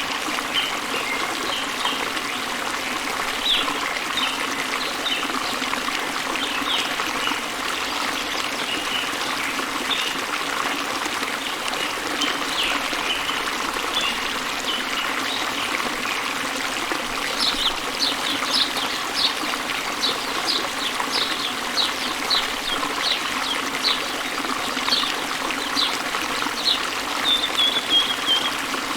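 Steady rush of waterfall water with small birds chirping throughout. Past the middle a bird gives a run of quick, high chirps that ends in a short trill.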